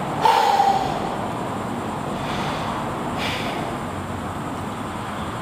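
A climber breathing hard while lying on the mat after a boulder attempt: a loud sighing exhale that falls in pitch just after the start, then two more heavy breaths about two and three seconds in, over a steady rushing background of gym air-handling noise.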